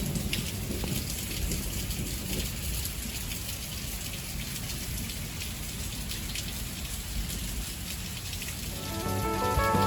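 Heavy rain falling steadily in a downpour, pattering on surfaces. Near the end, music fades in over the rain.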